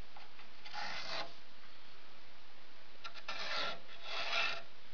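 Pencil on a homemade string compass scraping across wooden chair-back slats as it draws an arc: three rasping strokes, one about a second in and two close together near the end.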